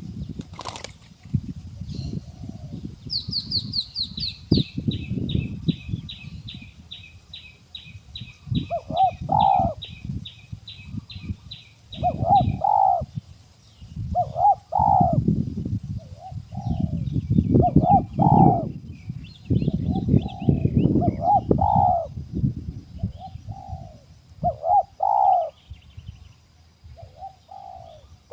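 Spotted dove (terkukur) cooing in repeated phrases over the second half, over a rustle of wings fluttering. In the first half, a fast series of high chirps from another bird runs for several seconds.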